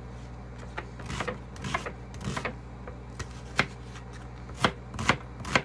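A ceramic chef knife slicing an onion on a plastic cutting mat, the blade knocking down onto the mat at an uneven pace of about two strokes a second. The sharpest strokes come in the last two seconds.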